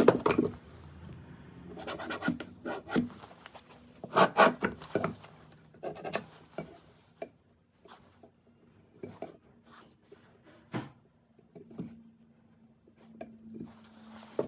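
Wood being worked by hand tools to cut a tenon: irregular scraping and rubbing strokes on the wood, with a few sharp knocks.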